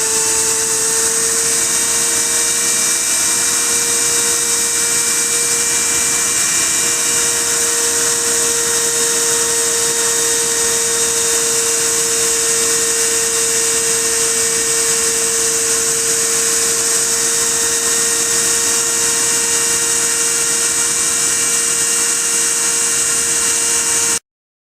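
High-speed spindle motor of a DIY CNC PCB-milling machine running steadily with a high-pitched whine and hiss, as when milling a circuit board. The sound cuts off abruptly near the end.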